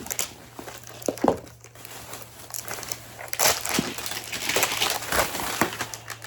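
Plastic wrapper being crinkled and peeled off a Mini Brands toy capsule: irregular crackles and rustles, busier in the second half.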